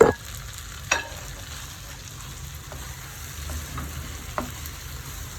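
Chicken chukka frying in a pan with a steady sizzle, while a spoon stirs it and knocks against the pan. The loudest knocks come at the start and about a second in, with another near the end.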